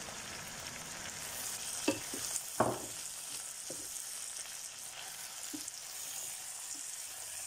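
Chicken, carrots and onion frying in a non-stick pan with a steady sizzle, as spice mix is added and stirred in with a metal spoon. A few knocks of the spoon and bowl against the pan, the loudest a little over two and a half seconds in.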